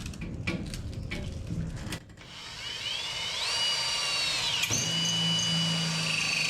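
Electric drill drilling a hole, fitted with a bit the user calls the dullest one he has. After a couple of seconds of handling clatter the motor whines up to speed and runs steady, with a brief dip in pitch partway through as the bit bites.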